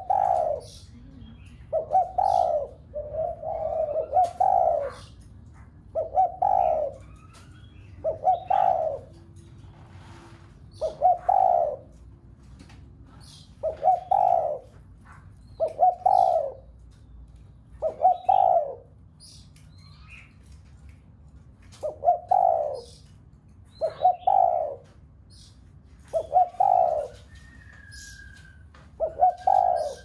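Spotted dove cooing over and over, one coo phrase about every two seconds. It is the driving 'gáy thúc' cooing that keepers use to rouse other doves into calling.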